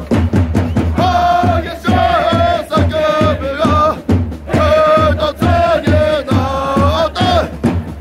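Music: a chant-style sung melody over a steady drumbeat and bass.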